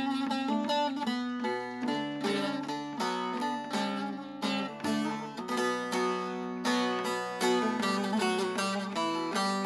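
Bağlama (Turkish long-necked saz) playing a melody of quick plucked notes, with lower notes ringing on beneath.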